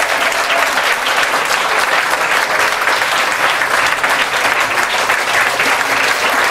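Audience applauding: a dense, steady mass of hand claps.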